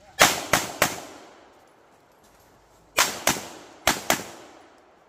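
Handgun shots fired in quick strings: three shots about a third of a second apart, then after a pause of about two seconds two pairs of quick shots, each shot trailing off in a short echo.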